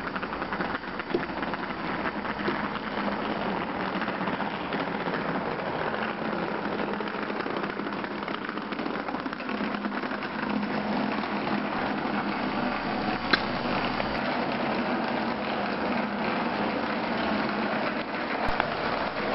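Steady rolling rumble of a wheeled trolley suitcase pulled over concrete pavement, with one sharp click about 13 seconds in.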